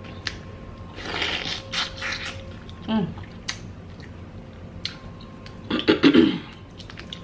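Close-miked eating: wet chewing and the crackle and snap of a cooked prawn's shell being pulled apart by hand, loudest about six seconds in.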